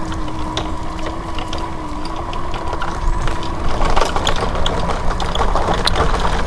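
Footsteps crunching on a dry, leaf-littered dirt trail, a rapid irregular crackle of dead leaves underfoot, over a low rumble on the microphone. A steady low hum runs under it until a little past halfway.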